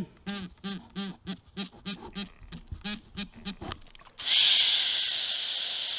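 A quick run of short squirts from a trigger spray bottle of soapy water, about four a second, each with a pitched squeak. About four seconds in, a sudden steady hiss starts: argon gas flowing through the TIG torch's gas lens and leaking out past the Pyrex cup.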